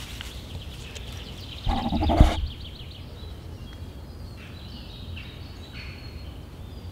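A dog's short, loud vocal noise about two seconds in, over small birds singing in the background.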